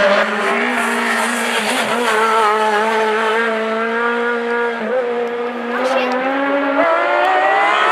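Hillclimb race car's engine running at high revs, its pitch held fairly steady, dipping briefly about five seconds in, then climbing again toward the end.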